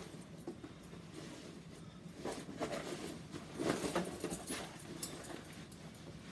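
Canvas straitjacket rustling and scraping, with its buckles and metal rings clinking, as the wearer struggles out of it and pulls it off over his head. The noise comes in irregular bursts and is loudest a little past the middle.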